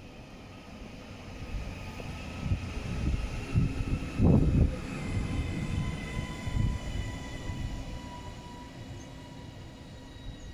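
Northern Class 331 electric multiple unit slowing into a station platform. Its traction motors whine in several steady tones that slowly fall in pitch as it brakes, over a low rumble of wheels on rail that is loudest about four seconds in.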